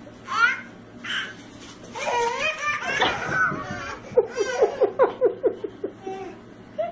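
A baby laughing: squeals, then a quick string of belly-laugh 'ha-ha's about four seconds in.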